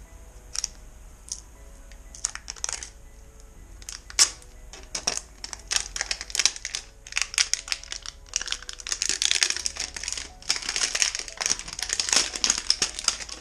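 Plastic packaging crinkling and crackling as it is handled and unwrapped, in scattered crackles that turn into a dense, louder stretch over the last few seconds. Faint background music runs underneath.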